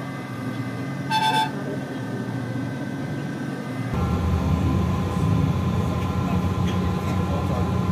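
City bus engine running, heard from inside the cabin, with a short vehicle-horn toot about a second in. About four seconds in, the low engine rumble grows louder and stays up.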